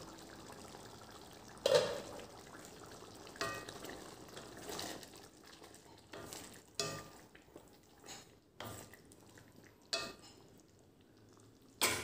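Bean curry bubbling in a stainless steel kadai while a spatula stirs it, knocking against the pan about once a second or so.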